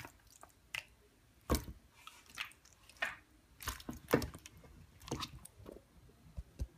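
Irregular wet squelches and light clicks of sticky, marinated chicken wings being handled and laid into a baking dish.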